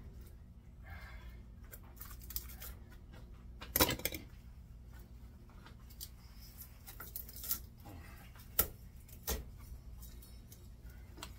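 Knife cutting and scraping tape and insulation off a scrap electric motor's copper windings: scattered scrapes and metal clinks, the loudest about four seconds in and two more sharp clinks near the end, over a steady low hum.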